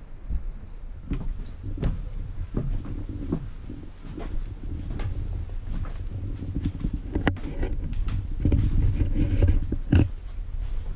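Footsteps on wooden stairs and tatami, with low rustling handling noise from a handheld camera's microphone; uneven soft knocks about once a second and a sharp click about seven seconds in.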